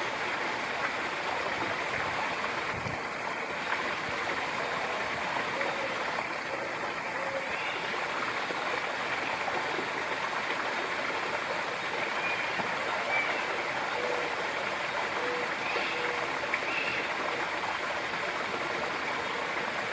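Steady rush of running water, even and unbroken, with a few faint brief tones over it.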